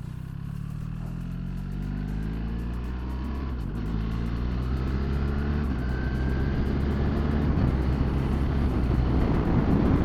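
BMW R1300 GS boxer-twin engine accelerating hard, its revs climbing, dropping at a quick-shifter upshift about three and a half seconds in, then climbing again before settling. Wind rush builds as the bike picks up speed.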